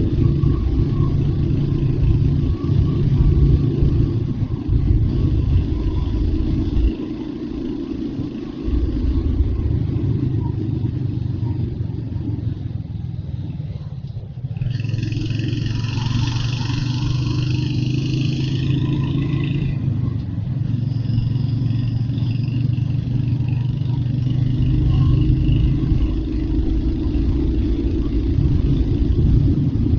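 Royal Enfield Hunter 350's single-cylinder engine running under way, with a heavy low rumble and brief easings of the throttle. About halfway through, a brighter, higher sound joins for about five seconds.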